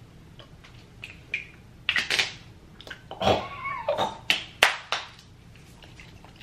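A woman's wordless, delighted reactions to a scent she likes: breathy exhales, then a wavering 'ooh' about three seconds in, followed by a few sharp clicks.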